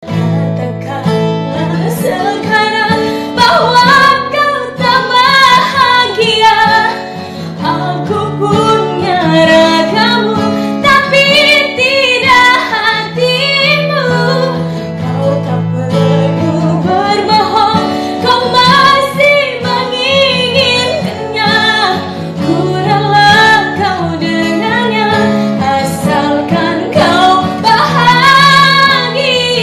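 A woman singing a slow, melodious song over instrumental backing that includes guitar.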